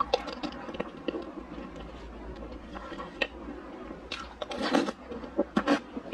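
Close-miked mouth sounds of a person eating spoonfuls of chocolate mousse cake: chewing and lip smacking in a run of short clicks, louder and busier about four to five seconds in.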